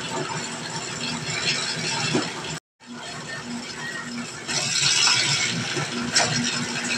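Dough roller running, its steel rollers turning with a steady pulsing mechanical hum and scattered clicks as bread dough is fed through and sheeted. The sound cuts out for a moment a little over two and a half seconds in, and it grows louder and fuller about four and a half seconds in.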